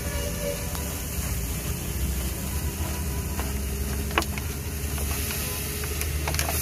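Egg mixture sizzling on a large flat iron griddle, with water poured onto the hot iron and hissing, over a steady low rumble. A few sharp clicks of the steel spatulas striking the griddle come about four seconds in and twice near the end.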